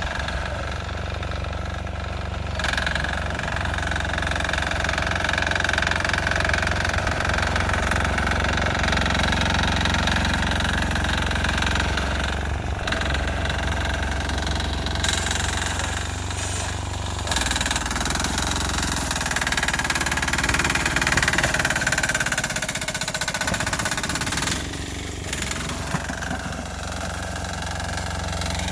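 Six-horsepower single-cylinder air-cooled diesel engine on a Sears garden tractor running steadily while plowing snow, its note wavering for a few seconds past the middle. A hiss comes in over the engine from about halfway until shortly before the end.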